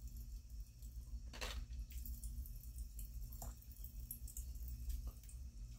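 Pop Rocks popping candy crackling in an open mouth held close to the microphone: a few scattered pops and crackles, the biggest about one and a half seconds in. A steady low hum runs underneath.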